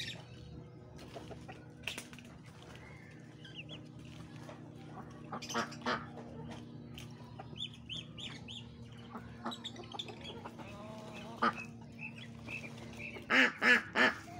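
Farmyard chickens clucking and calling, with three loud calls in quick succession near the end.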